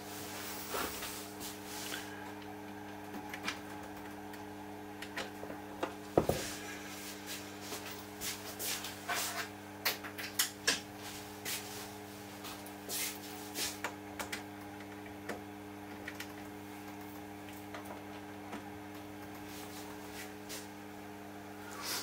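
Clicks and knocks of BNC test-cable connectors being unplugged from and plugged into an audio analyzer's front-panel sockets, thickest in the middle stretch, over a steady low electrical hum.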